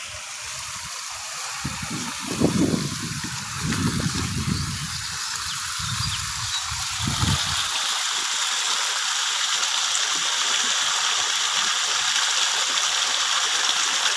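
Water gushing steadily from a pipe outlet into a fine-mesh fishing net in a river. Low rumbles come and go for the first several seconds, then stop.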